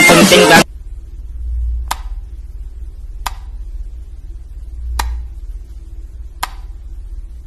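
Dance music cuts off abruptly just after the start. Then come four sharp clicks about a second and a half apart: a wall light switch being flicked off and on, over a low hum.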